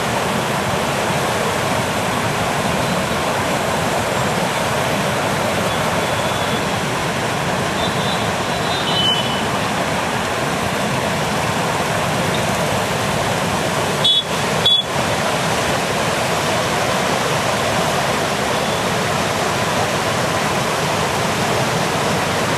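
Floodwater of the monsoon-swollen Arpa River rushing and churning: a steady, even noise of turbulent water.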